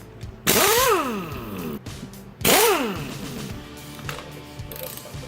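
A cordless power tool spun up twice, about two seconds apart, each time rising quickly in pitch and winding down over about a second, loosening an engine bracket bolt. Background music plays underneath.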